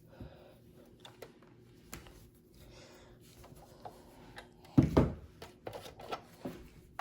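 Faint handling noises of small gadgets and cables being moved about on a desk: light clicks and rubbing, with one louder bump a little before five seconds in.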